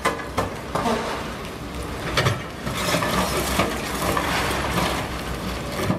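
Demolition excavators with hydraulic jaws working broken concrete: a dense run of crunching, clinking knocks of concrete and rubble over the steady low rumble of the machines' engines.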